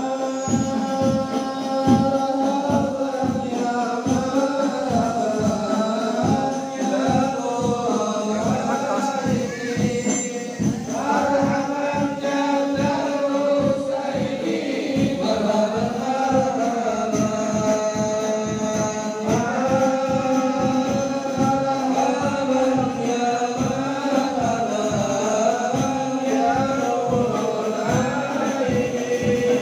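Group of men singing a devotional Islamic shalawat in praise of the Prophet, in unison, over a steady beat of frame drums.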